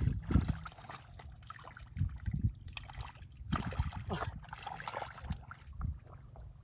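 Water splashing and sloshing in irregular bursts as hands work through shallow water feeling for catfish.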